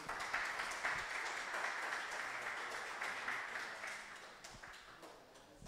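Small audience applauding, the clapping dying away near the end.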